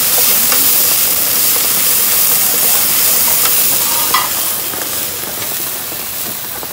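Sliced rattan shoots sizzling as they stir-fry in a hot frying pan, with a steady hiss and the scrape and tap of a wooden spatula turning them; a sharper knock of the spatula on the pan about four seconds in.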